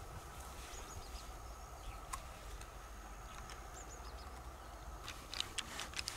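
Sharp clicks of freshwater mussel shells being handled and pried open: one about two seconds in, then a quick run of them near the end. Faint bird chirps sound now and then behind them.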